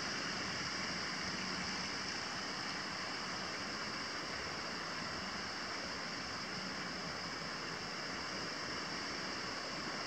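Steady rushing of water, as from rain or a mountain stream, holding an even level with no change.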